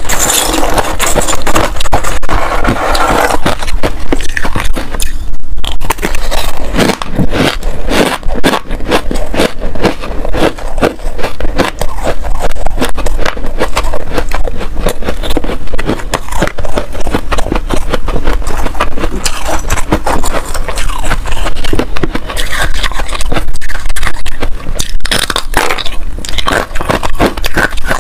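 Close-miked scraping and crunching of pink frost ice: a metal spoon scraping through the frost, and mouthfuls of frost and hard ice crackling and crunching between the teeth in dense, rapid crunches throughout.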